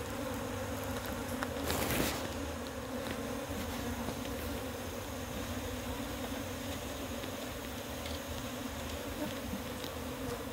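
A mass of honeybees from a wild colony being moved out of a hollow log into a hive box, buzzing as one steady, low, even hum. A short burst of noise, the loudest moment, comes about two seconds in.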